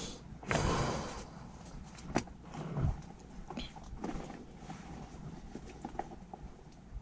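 Handling noise from work on electrical wiring: a brief rustle about half a second in, then scattered clicks and taps of wires and hardware being handled.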